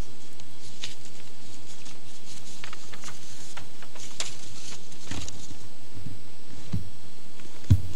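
Scattered small clicks and light knocks over a steady hiss, with a few dull thumps, the loudest one near the end.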